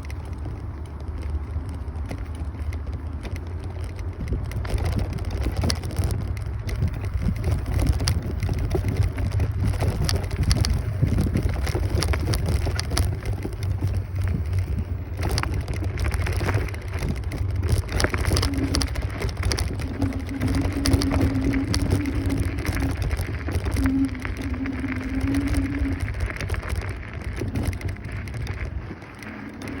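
Wind buffeting the microphone and road rumble from a Kaabo Wolf Warrior 11 Pro electric scooter on the move, with scattered crackles. A steady hum comes and goes in the second half.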